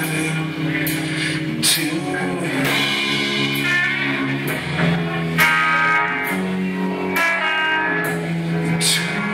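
Live rock band playing: electric guitar and bass guitar holding sustained notes over a drum kit, with sharp cymbal crashes every second or so.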